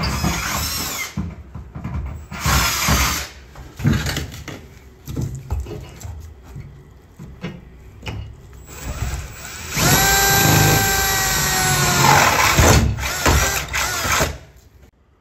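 Power drill drilling holes through a shipping container's wall, in several short stop-start bursts, then one longer steady run of about four seconds with a whining pitch that stops suddenly near the end.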